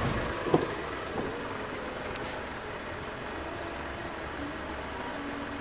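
Mitsubishi Triton pickup's engine idling steadily, with a single light click about half a second in.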